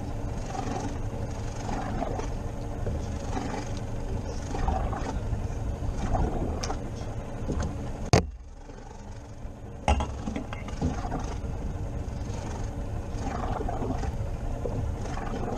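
Steady noise of wind and sea on an open inflatable boat, with a low hum underneath. About eight seconds in, a sharp knock cuts the noise away for almost two seconds, and a second knock brings it back.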